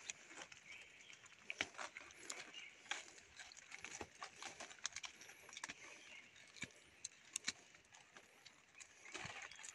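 Dry forest leaf litter and twigs crackling and rustling, with irregular sharp snaps: someone moving and foraging through dry undergrowth.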